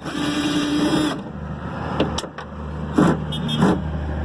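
A steady electric motor whine for about a second, then a low steady hum with a few sharp clicks and knocks. The whine is typical of a truck's power-window motor running.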